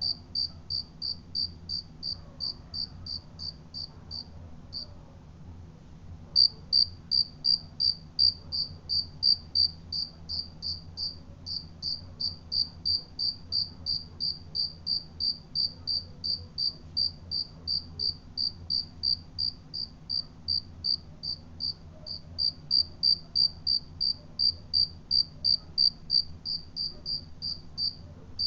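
A cricket chirping in an even rhythm of short high chirps, about three a second, with a pause of about two seconds starting around four seconds in. A faint low hum sits underneath.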